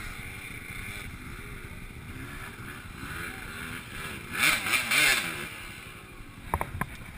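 Enduro dirt bike engine revving up and down several times. A louder, harsher burst of throttle comes about four and a half seconds in and lasts about a second.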